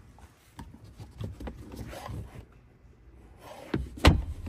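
A string of soft rustles and light knocks, then a sharp clack about four seconds in, the loudest sound here.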